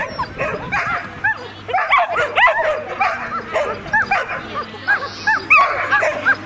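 A dog barking over and over in short, high-pitched barks, about two or three a second.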